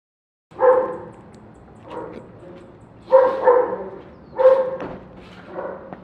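A dog barking over and over: about six barks with short pauses between them, some in quick pairs, starting about half a second in.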